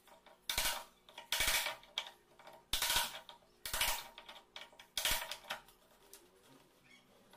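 Wood chisel pushed by hand into a mortise slot in a wooden door edge, scraping and prying out wood chips in about five strokes a second apart, then going quiet for the last couple of seconds.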